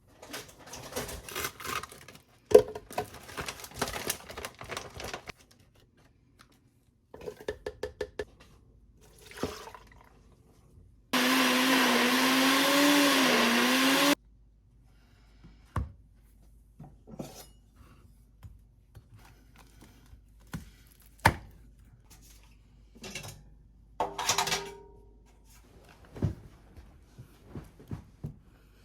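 Scattered kitchen clicks and clatter, then an electric blender runs for about three seconds, its pitch wavering as it works under load, and stops abruptly.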